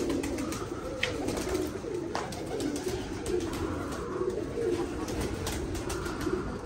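Domestic pigeons cooing, many overlapping low, wavering calls that run on steadily, with a short high chirp about a second in.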